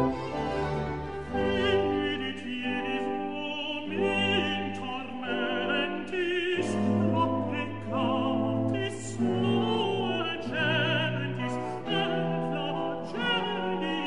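Classical music: an operatic voice singing with strong vibrato over an orchestra, with sustained notes changing every second or so.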